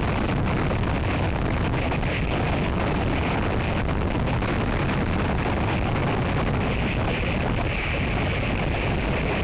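Strong wind blowing across the microphone: a steady, loud rushing noise, heaviest in the lows.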